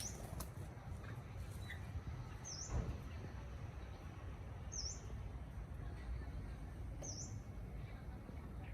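A bird gives a short, high, sharp call four times, about every two and a half seconds, over a steady low background rumble. A single dull knock comes just under three seconds in.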